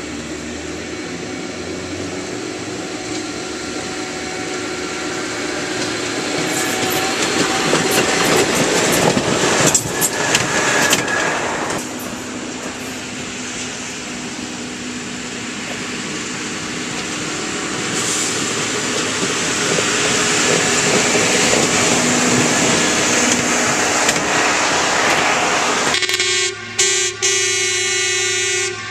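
Railroad maintenance-of-way track machines rolling past one after another: a steady rumble of engines and steel wheels on rail that swells as each machine goes by, with scattered clicks. Near the end a horn sounds, two short toots and then a longer blast.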